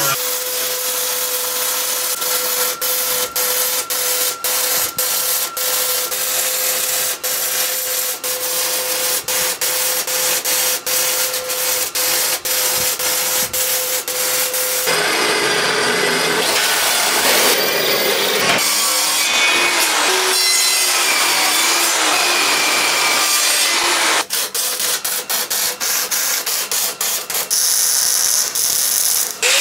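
MIG welding on steel plate: a continuous crackling hiss broken by many brief cut-outs. A rougher, shifting stretch of metalwork noise runs through the middle.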